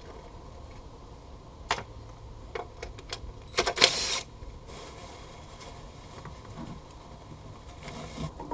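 Scattered clicks and metal taps of a hand tool working the valve cover bolts on a Honda Accord engine, with a short rattling burst about three and a half seconds in; quiet between the strokes.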